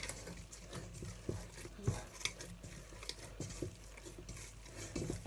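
Oiled hands working a soft, sticky brioche dough in a bowl: quiet handling noises with scattered light knocks against the bowl, the loudest about two seconds in.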